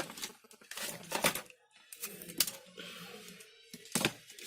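Several sharp clicks and light clatter of small tools and wires being handled on a workbench, over a faint steady hum.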